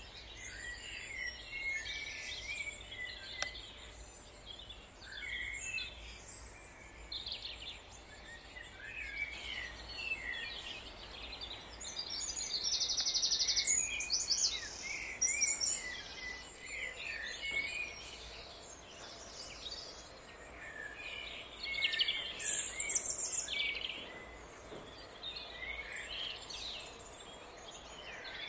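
Several wild songbirds singing and calling in the surrounding trees: a steady mix of short chirps and quick trills, with the loudest rapid trills about halfway through and another loud burst later on.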